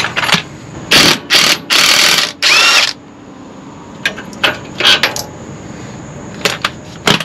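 Ratchet wrench clicking in four quick strokes, then scattered metal clicks and taps. It is loosening the clamp bolts on the old rear air-spring bracket of an RV's leaf-spring suspension.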